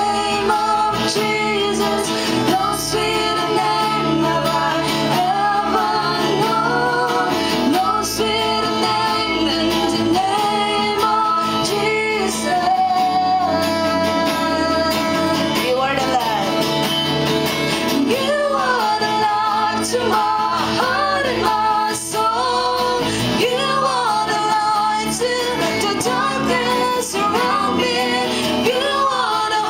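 Live acoustic guitar strumming under two female voices singing a slow worship song through microphones.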